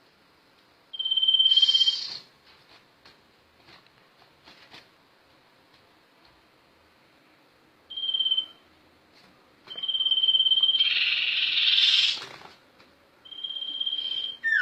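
A sirtu (sirpu) songbird singing. It gives four level, high whistled notes, each held up to about a second, with pauses between. After the first and the third whistle comes a harsh, rasping burst of about a second.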